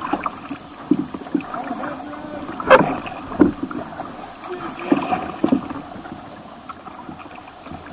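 Kayak paddles dipping and splashing in a flowing, rippling stream: irregular paddle strokes over running water, the loudest splash coming a little under three seconds in.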